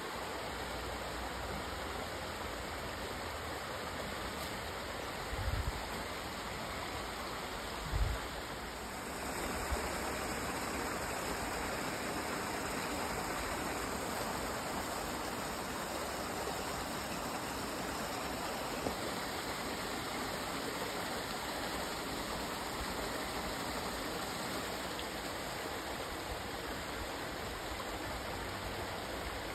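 Small woodland stream running over rocks, a steady rushing wash of water, with two dull low thumps in the first third.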